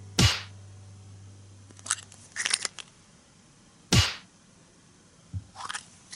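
Plastic toy capsules and the foil-wrapped chocolate egg inside being handled and pulled apart: short crinkling and small plastic clicks in clusters. Two sharp thuds stand out, one just after the start and one about four seconds in.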